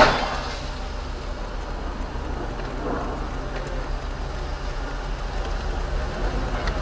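A tipping dump truck lands on its side with a loud crash right at the start, followed by a steady low engine rumble with a hiss of background noise.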